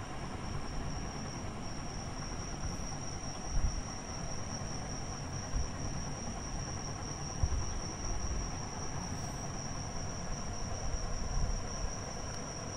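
Steady background hiss and low rumble with a constant high-pitched whine, broken by a few brief low bumps.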